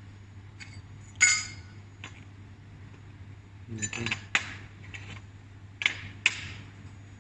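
Metal pieces clinking and knocking against each other and a metal surface several times, with the loudest clink about a second in, over a steady low hum from the welding machine.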